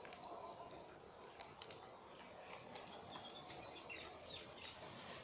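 Faint outdoor ambience with a few light clicks and some brief high chirps.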